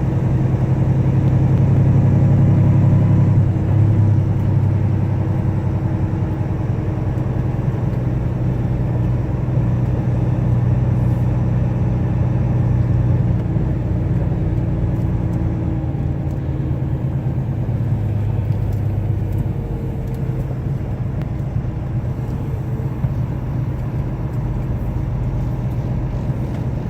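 Semi truck's diesel engine running steadily as the truck drives slowly, a low drone that is a little louder in the first few seconds and eases off gradually.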